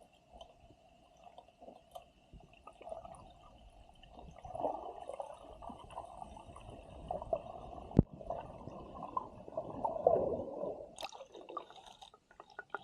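Underwater sound: irregular gurgling and bubbling of water over a faint steady hum, louder from about four seconds in, with one sharp click about eight seconds in and a brief burst near eleven seconds.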